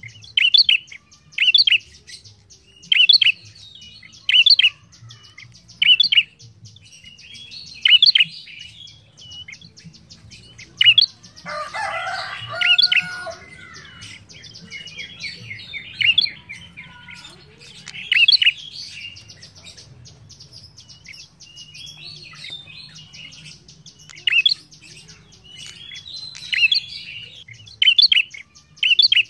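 Tailorbird calling in short, sharp, high notes repeated every one to two seconds, with a longer, busier chattering phrase about midway.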